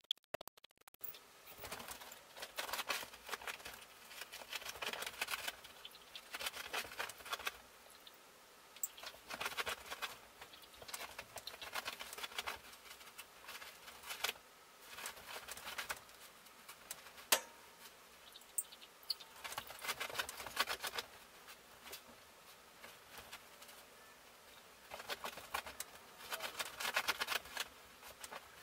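Labradoodle digging and pawing at a comforter on a bed: scratchy rustling of fabric in repeated bursts of a second or two, with one sharp click about two thirds of the way through.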